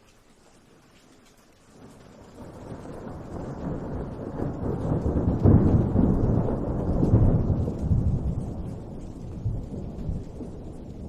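A long roll of thunder: a low rumble that begins about two seconds in, swells to its loudest around the middle, and slowly dies away.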